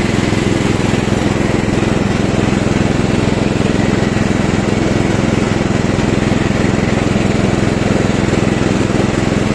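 Riding lawn tractor mower's 12.5 hp engine running steadily while it mows, with its two cutting blades working through the grass.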